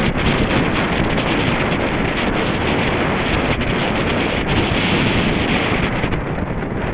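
Wind buffeting the microphone of a camera worn by a cyclist riding a road bike: a steady, loud noise that eases slightly near the end.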